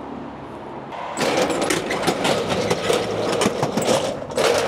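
Metal roller shutter rolling up, its slats rattling continuously, starting about a second in.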